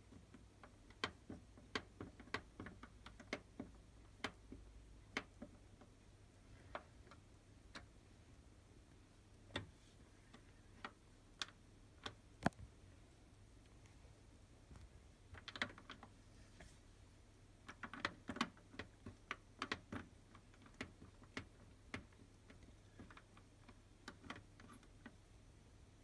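Quiet, irregular clicks from a Beko WM74165W washing machine's control panel as its option buttons are pressed and its program selector dial is turned, with a quicker run of clicks about two-thirds of the way through.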